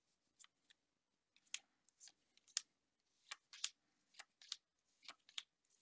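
Magic: The Gathering cards being handled and slid over one another: faint, irregular flicks and clicks of card stock.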